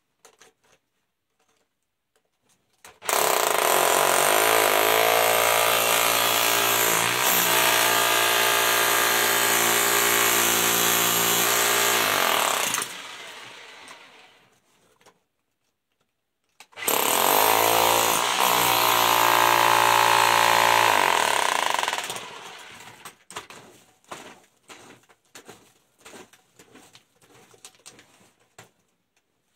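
Jackhammer breaking ground in two long runs, about ten seconds and then about five, its pitch shifting soon after each start. Between and after the runs come scattered small knocks and scrapes.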